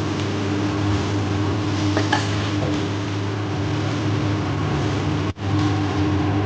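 Steady machine hum with a hiss running under the cooking, with a light clink of the metal spatula against the wok or plate about two seconds in. The sound drops out for an instant near the end.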